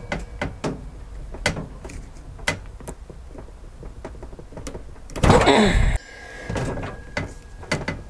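Locking pliers gripping and pulling a red automotive wire whose double-pass solder joint is clamped in a bench vise, in a pull test of the joint. Scattered small clicks and creaks, with a louder drawn-out sound falling in pitch about five seconds in.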